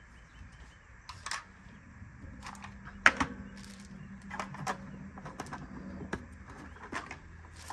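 Scattered light clicks and taps of plastic cases and craft supplies being handled and set down on a tabletop, with the sharpest click about three seconds in.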